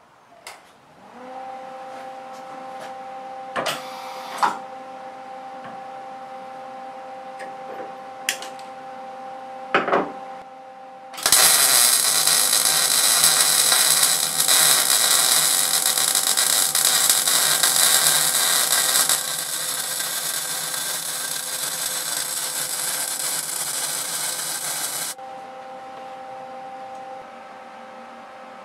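A wire-feed welder's arc runs for about fourteen seconds as a loud, steady crackling hiss while two steel pieces are butt-welded, easing a little partway through before cutting off. Before and after it, a steady hum is heard, and a few sharp knocks come from handling the work.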